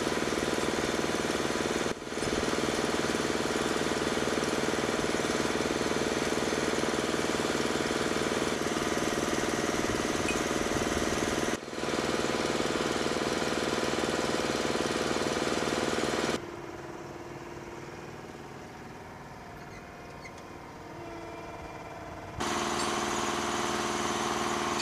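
Diesel engines of MHU-83 munitions lift trucks running steadily with an even knocking rhythm. The sound drops out for a moment twice, and is much quieter for about six seconds in the second half before coming back.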